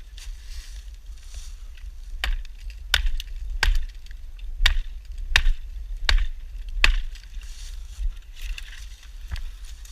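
A KLAX hatchet head chopping green wood: a run of about eight sharp chops, roughly one every 0.7 seconds, starting about two seconds in.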